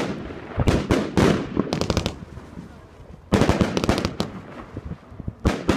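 Aerial fireworks bursting in a series of bangs, some trailing off into rapid crackling. The loudest burst comes about three seconds in and is followed by a second or so of crackle.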